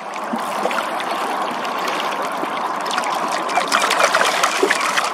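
River water rushing and trickling along the side of a boat, with many small splashes.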